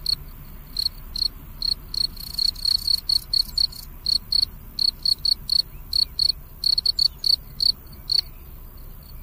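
Field cricket chirping: short, high chirps repeating about three times a second, running almost together for a stretch in the middle, then falling silent for the last second or so.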